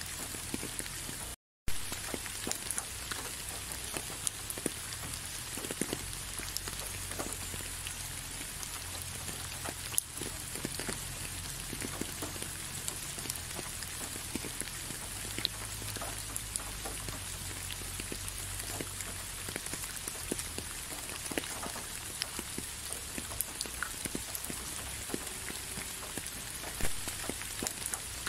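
Steady rain, with many separate drops ticking as they hit close by. The sound cuts out completely for a split second about a second and a half in.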